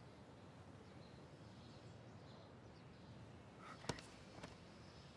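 Near silence: faint background hiss, broken by one sharp click about four seconds in and a fainter click shortly after.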